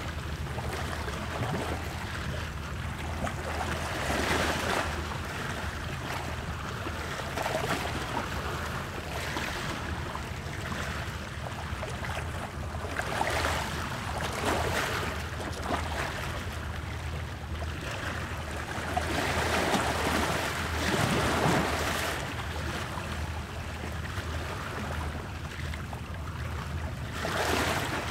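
Ocean waves breaking and washing in, a steady surf noise that swells and fades every few seconds.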